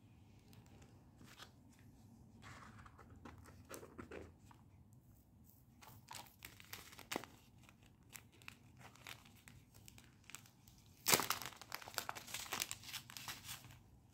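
Packaging being handled and crinkled, with scattered crackles and a louder run of crinkling and tearing about eleven seconds in.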